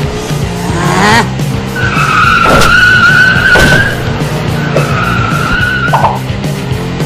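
Car tyres screeching as a cartoon sound effect, a long screech about two seconds in and a shorter one near the five-second mark, after a quick rising whoosh. Rock background music with a steady beat plays underneath.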